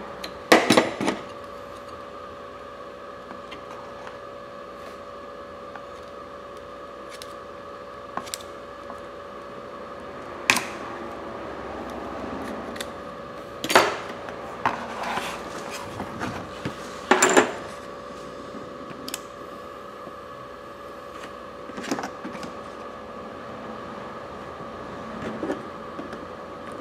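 Scattered clicks and knocks of an iPhone and small hand tools being handled and set down on a workbench, the loudest cluster about half a second in and more between about 10 and 18 seconds in. A steady hum runs under it throughout.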